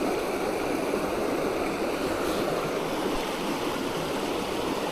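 Stream water rushing and burbling over rocks, a steady, unbroken flow.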